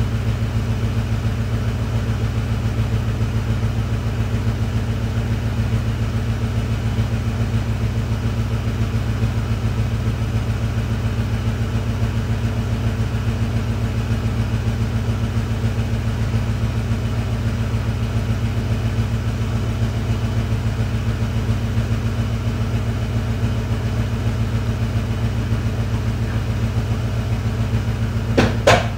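1985 Ford Mustang GT's 5.0 V8, on its stock exhaust, idling with a steady slow rumble as it warms up from a cold start after two months of standing. A few sharp clicks come near the end.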